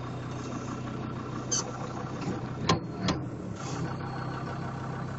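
Off-road vehicle's engine idling steadily, heard from inside the cab, with two sharp clicks a little over halfway through.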